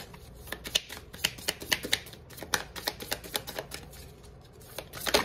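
Deck of oracle cards being shuffled by hand: a quick run of short card clicks that thins out after about three seconds, with one sharper click near the end.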